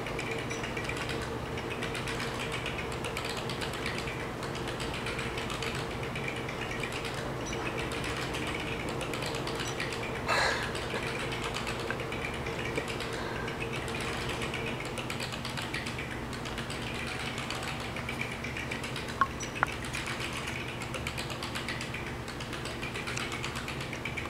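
Leather massage chair running, its motors and massage mechanism giving a steady hum with a pulsing mechanical whir. A brief louder noise comes about ten seconds in, and two sharp clicks come near the end.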